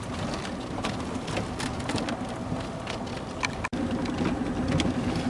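Jeep cabin noise while driving on snowy, drifted roads: steady engine and road noise with many scattered sharp ticks and pattering. The sound cuts out for an instant about three and a half seconds in, and a low hum is stronger after it.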